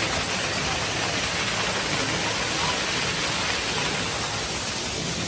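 Small waterfall splashing down artificial rockwork: a steady rush of falling water.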